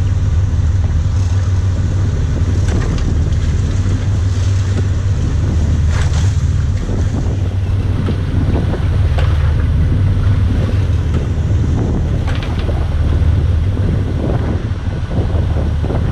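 Sportfishing boat's inboard engines running, a steady low drone, with wind buffeting the microphone. Water churns and splashes at the stern now and then.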